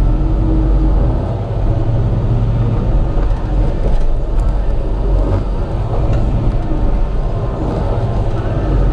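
Komatsu PC88 excavator's diesel engine running steadily under working load, a constant low drone, with a few faint sharp clicks in the middle.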